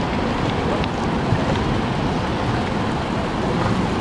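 Steady rushing outdoor noise: wind buffeting the microphone over the sound of surf on the shore.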